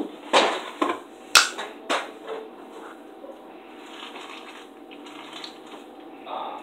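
A few clatters and knocks of things handled in a kitchen, the loudest a single sharp click about a second and a half in, followed by another near two seconds; after that only a faint steady background.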